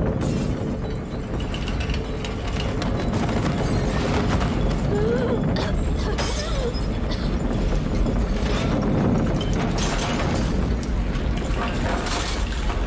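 TV drama soundtrack: a loud, steady low rumble with crashes and rattles, mixed with dramatic score music.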